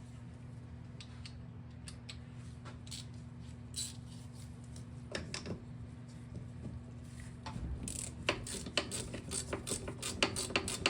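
Scattered metal clinks of hand tools, then from about eight seconds in a hand ratchet clicking rapidly as the handlebar clamp bolts are loosened. A steady low hum sits underneath.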